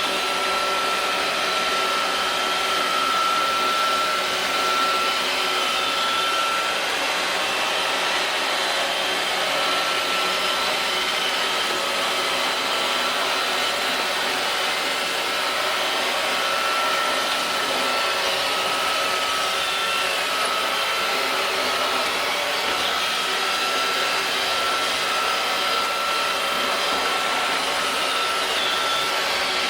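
iRobot Roomba robot vacuum running steadily, a held high whine over the even rush of its suction and brushes.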